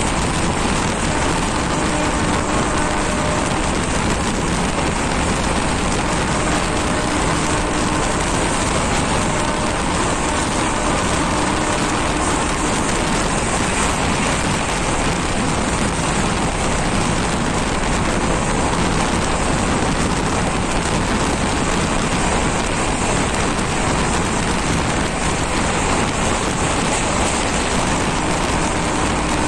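Passenger train running along the track at speed: a steady, loud rush of wheels on rails and air noise, heard close to the open side of the coach.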